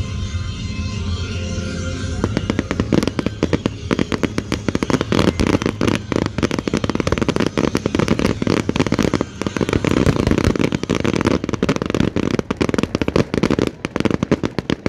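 Fireworks display: from about two seconds in, a dense, continuous barrage of rapid bangs and crackles as many shells and ground fountains fire at once.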